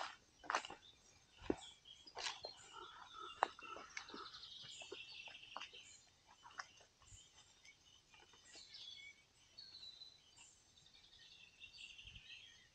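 Songbirds chirping and singing faintly in woodland. In the first few seconds, footsteps crunch on dry leaf litter and snap twigs.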